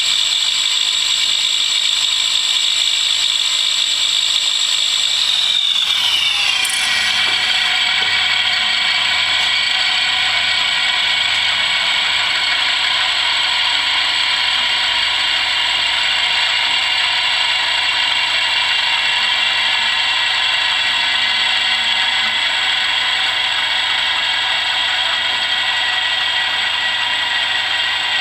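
Dynamic balancing machine spinning a Ducati M900 crankshaft and flywheel on its belt drive for a balance measurement: a steady mechanical whine whose pitch drops around six seconds in, then holds steady.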